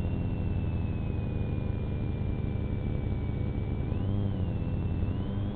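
Police patrol car's engine running while driving, with a steady low hum and a thin high whine that slowly falls, then rises about four seconds in as the engine picks up.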